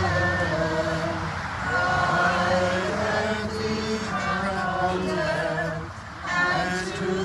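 Men and women singing a Byzantine liturgical chant together, unaccompanied, in sustained phrases with a short breath break about six seconds in.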